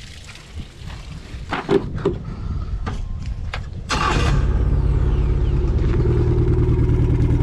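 Outboard motor with its cowling off, running on flush muffs, started with the ignition key: a few light knocks, then a short loud burst as it cranks and catches about four seconds in, settling straight into a steady idle.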